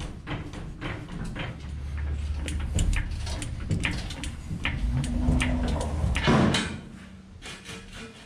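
Floor jack pushed on its casters across a concrete floor by its long handle: rattling clanks over a low rolling rumble that ends in a louder scrape about six and a half seconds in.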